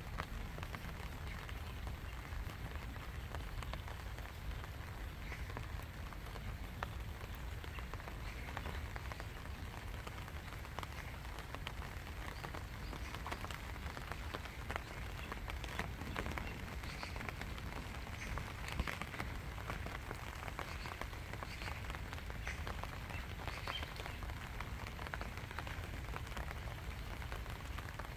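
Steady rain falling on a lake's surface: an even hiss of many small drop ticks, with a steady low rumble underneath.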